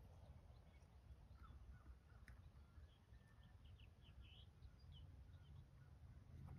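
Near silence: a low outdoor rumble with a few faint, short bird chirps in the distance.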